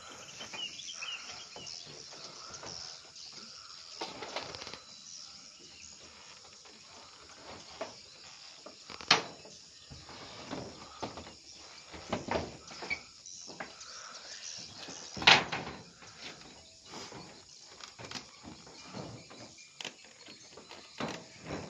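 A crowd of swiftlets in a swiftlet house chirping and clicking, a dense irregular scatter of short calls, heard with the lure-call speakers switched off. Two sharper, louder clicks stand out, about 9 and 15 seconds in.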